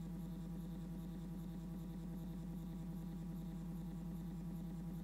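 Stepper motor driven by an A4988 driver set to 16 microsteps, running with a steady hum at one pitch with fainter higher tones above it. The sound is smooth and fairly quiet for this driver, because of the finer microstepping.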